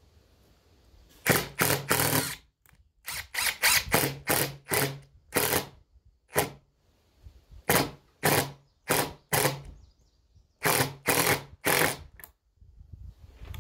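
Power drill driving a screw into wood in repeated short trigger bursts, a fraction of a second each, with brief pauses between.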